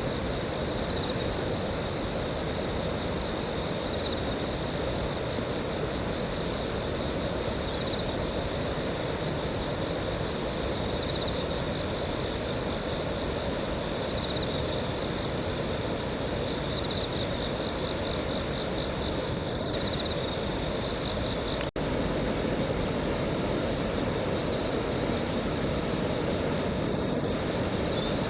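Steady outdoor rushing noise with a continuous high-pitched, rapidly pulsing insect trill over it. The sound drops out for an instant about 22 seconds in, then carries on slightly louder.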